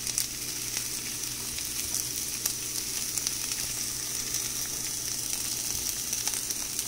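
Chopped carrot and broccoli sizzling in hot oil in a frying pan: a steady high hiss full of small crackles.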